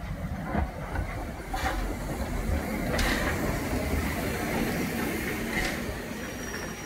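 Steam train hauled by the LSWR O2 class 0-4-4 tank locomotive W24 Calbourne passing at low speed, then its vintage wooden-bodied carriages rolling by: a steady rumble of wheels on the rails with irregular knocks.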